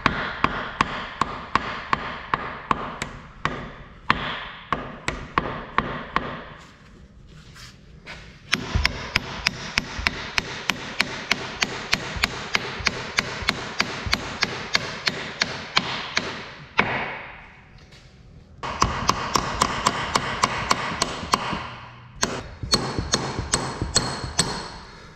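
Hammer striking a steel pin to drive it out of the stabilizer cylinder's mount, in rapid, even blows about two to three a second, with metallic ringing between them. The blows come in several long runs broken by short pauses.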